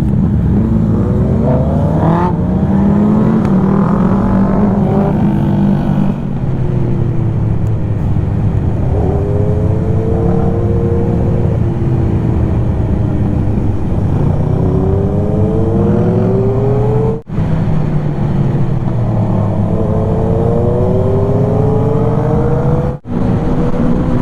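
Motorcycle engine accelerating hard through the gears, its pitch climbing and then dropping back at each upshift, over and over, with a steady rush of wind. The sound cuts out sharply for a moment twice near the end.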